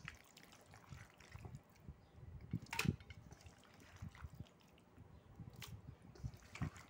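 Marinated mutton and potato pieces dropped by hand into a metal pressure cooker: faint wet plops and squelches, with a few sharper clicks against the pot, one about three seconds in and two near the end.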